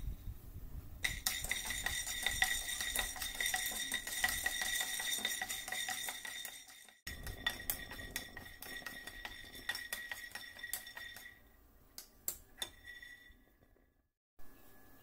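Raw peanuts rattling and sliding in a dry frying pan as they are stirred with a wooden spatula: a dense run of small clicks and clinks with a steady high ring through much of it. It breaks off twice, about halfway and near the end.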